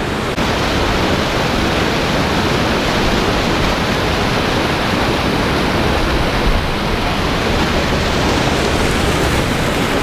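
Loud, steady rush of white water churning below a river dam at a fish ladder.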